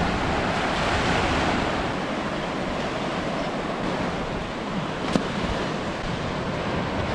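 Ocean surf washing onto the beach in a steady rush, with wind buffeting the microphone. A single sharp click about five seconds in.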